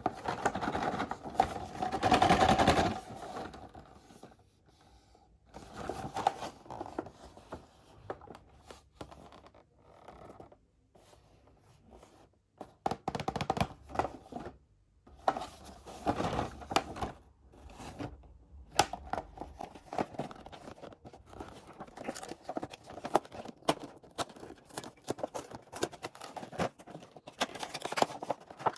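Hands opening and handling Hot Wheels 5-pack packaging: irregular scraping and rustling of plastic blister and cardboard, loudest a couple of seconds in, with many short sharp clicks in the second half.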